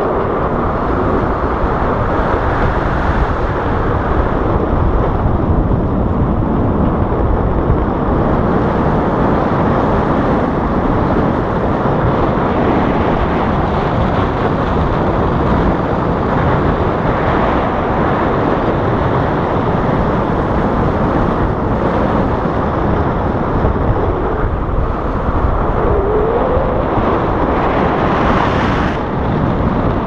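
Steady, loud wind noise as air rushes over an action camera's microphone in paragliding flight. Near the end a brief rising tone sounds over it.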